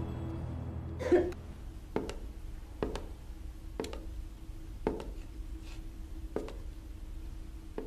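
Slow footsteps of hard-soled shoes on a wooden floor, about one step a second, over a faint steady hum.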